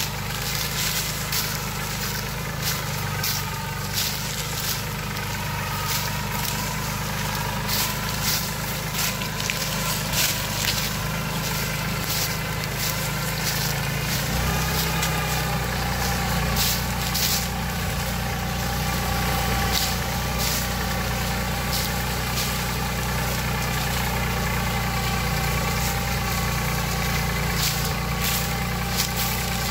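Eicher 28 hp tractor's diesel engine running steadily under load as it pulls a tillage implement through vineyard soil, with frequent sharp clicks and rattles. The engine grows louder about halfway through as the tractor comes nearer.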